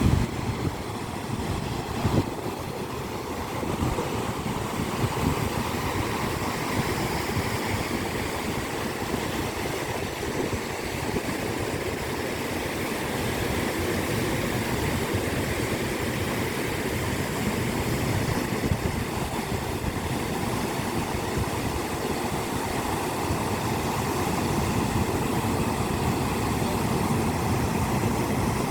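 Sea waves washing onto the shore: a steady low rush of surf that swells slowly.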